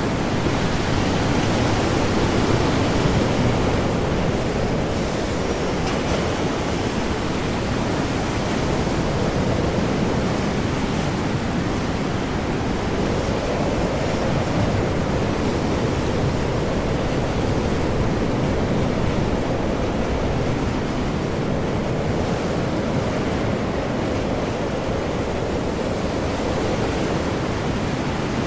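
Stormy ocean with heavy, large waves surging and breaking under high wind, making a steady, dense wash of noise that swells and eases only slowly.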